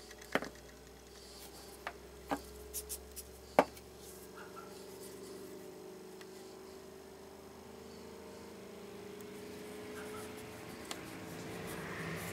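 Several sharp knocks and clicks in the first four seconds, the loudest about three and a half seconds in, then a faint steady hum.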